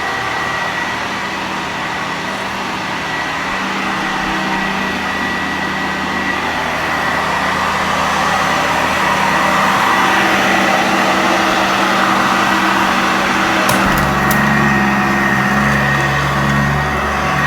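Sanitaire vacuum cleaner running steadily on carpet: motor and brush-roll noise with a thin, steady whine. About fourteen seconds in, a lower hum comes up under it.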